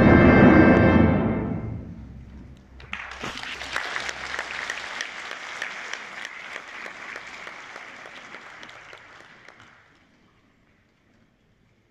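An opera orchestra's loud sustained chord ends about a second and a half in. After a short pause an audience applauds for about seven seconds, the clapping thinning and fading out.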